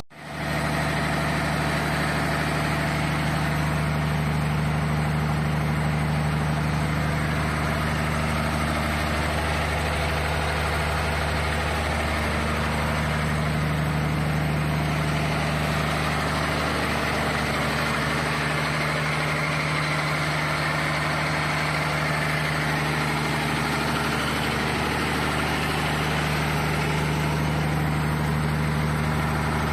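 Deutz diesel engine of a 30 kW generator set running at a steady speed, an unchanging low engine note with no revving.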